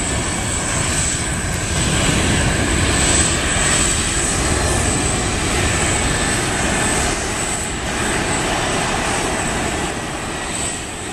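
Jet airliner engine noise: a steady rushing sound that swells slightly about two to three seconds in.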